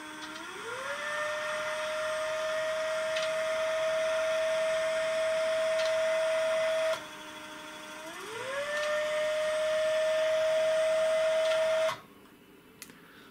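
The SP-668 UHF antenna filter's stepper motor is turning the variable capacitors through the gear train to set the filter frequency. It makes a whine that rises in pitch as the motor speeds up, holds steady for about six seconds and stops abruptly. After a short lull it ramps up again, runs steadily for a few seconds and stops near the end.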